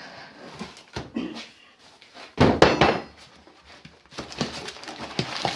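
Knocks and clicks of tools and packaging being handled, with a short loud rasping burst about two and a half seconds in.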